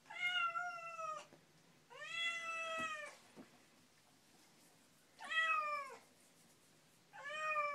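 Domestic cat meowing while being bathed in a tub of water: four long, drawn-out meows a second or two apart, several of them dropping in pitch at the end.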